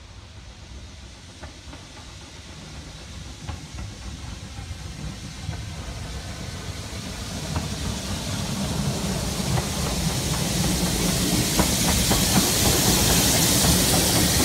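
BR Standard Class 2MT 2-6-0 steam locomotive No. 78018 running light engine, approaching and passing close, growing steadily louder. Near the end, as it passes, a loud hiss of steam dominates.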